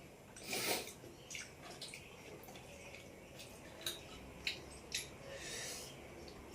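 Faint wet mouth sounds of eating rice and fish curry by hand: scattered lip smacks and sharp little clicks, with a short breathy rush about half a second in.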